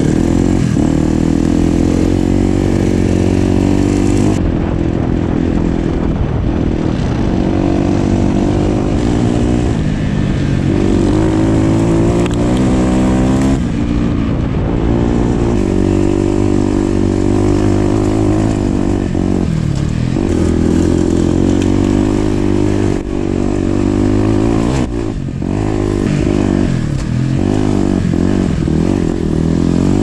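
Dirt bike engine heard from on board while riding a trail, its pitch rising and falling with the throttle and gear changes. The note drops briefly several times, when the rider backs off the throttle.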